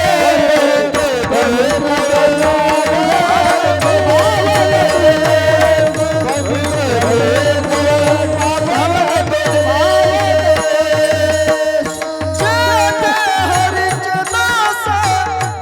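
Devotional kirtan singing: a voice sings a slow, ornamented melody over a steady held note, accompanied by a hand drum beating a regular rhythm.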